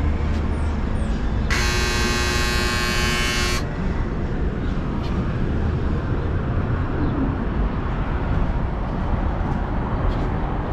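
Downtown street ambience: steady traffic rumble. About a second and a half in, a shrill buzzing tone with many overtones sounds for about two seconds and then stops.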